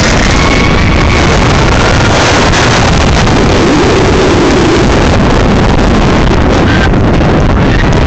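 Wind blasting the phone's microphone as a roller coaster train races along its track, with the rumble of the train mixed in. Faint screams from riders rise out of it a few seconds in.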